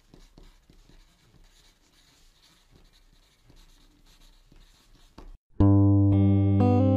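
Pencil scratching faintly on paper as a word is written. About five and a half seconds in, this stops and loud music begins suddenly, with ringing notes that slowly fade and a new chord struck near the end.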